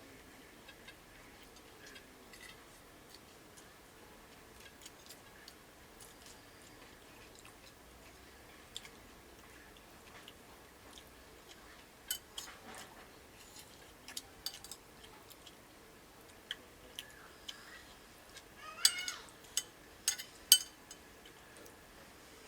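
Quiet eating sounds: chewing and scattered clicks and taps of food being handled on a plate, growing sharper and more frequent in the second half, with a brief squeak among the loudest clicks near the end.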